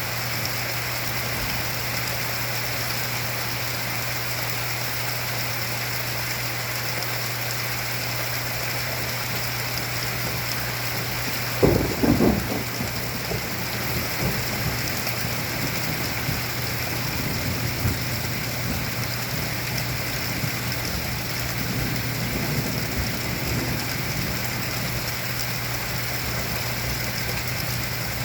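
Heavy rain falling steadily under a steady low hum, with a sudden sharp thunderclap about twelve seconds in that trails off into rumbling, and fainter rolls of thunder later on.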